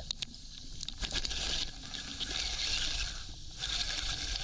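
Underwater noise heard through a camera housing: a steady hiss with a few clicks near the start.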